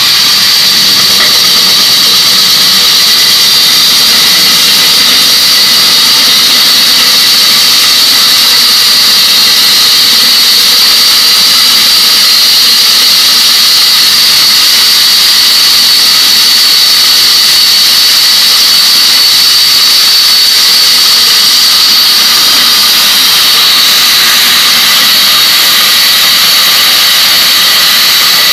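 Rig-mounted electric diamond core drill boring through a reinforced concrete (RCC) floor slab, its motor running loud and steady with a high-pitched whine over a grinding hiss.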